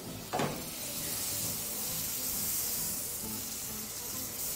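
Butter sizzling with a steady hiss as it melts in a hot frying pan on a gas burner, with soft background music underneath. A brief thump about half a second in.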